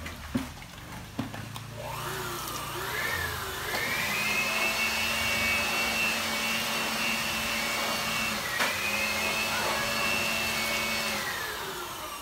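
A high-pitched electric motor whine, like a vacuum cleaner: it winds up about two seconds in, runs steadily with a short break past the middle, and winds down near the end. Two short knocks come before it starts.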